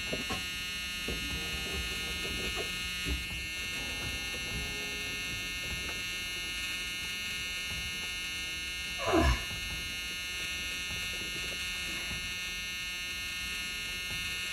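A steady electrical buzz, with one short loud knock or bump about nine seconds in.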